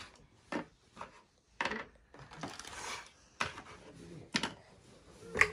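Small plastic slime tubs clicking and knocking together as they are handled, and a tub's lid being worked at with rubbing and rustling. The clicks are irregular, with the loudest near the end.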